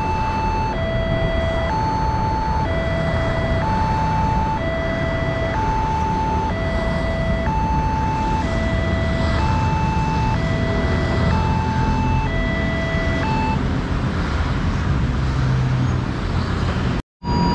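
Indonesian railway level-crossing warning alarm: an electronic two-tone chime alternating high and low about once a second, which stops about 13 seconds in. A steady low rumble runs underneath, and near the end the sound cuts out for a moment.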